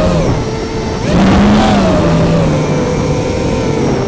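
Armattan Rooster FPV quadcopter's brushless motors and propellers whining in flight, heard from the onboard camera. About a second in, the throttle punches up and the whine jumps louder and higher, then slowly sinks in pitch.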